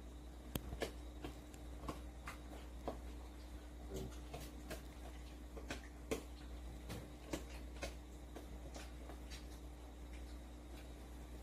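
Small dog gnawing a hard stick-shaped chew treat: irregular sharp crunches and clicks as its teeth work the treat, over a faint steady hum.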